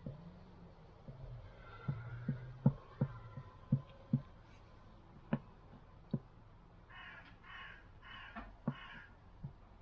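A series of sharp knocks and clicks, most of them between about two and four seconds in, then four harsh cawing calls in a row near the end.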